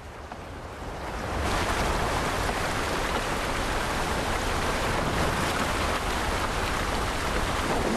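Rushing whitewater of fast river rapids, swelling over the first second and a half and then steady.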